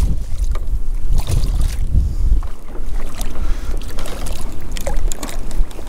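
Strong wind buffeting the microphone in a constant low rumble, with water splashing as a hooked redfish thrashes at the surface beside the kayak.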